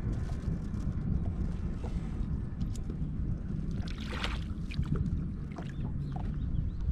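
Steady low rumble out on the water, with a few small clicks and a brief rustle about four seconds in.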